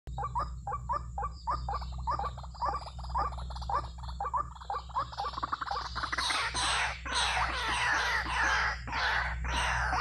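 White-breasted waterhens (ruak-ruak) calling: quick repeated croaking notes, about four a second, that turn louder, harsher and denser about six seconds in.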